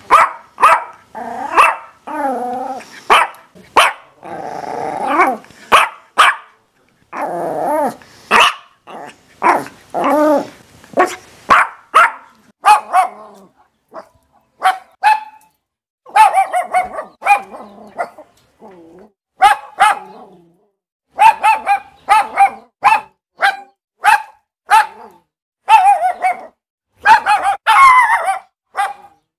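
A dog barking over and over in short, loud barks, sometimes in quick runs. In the first third there are a few longer, wavering calls between the barks, and there are brief pauses before the barking picks up again.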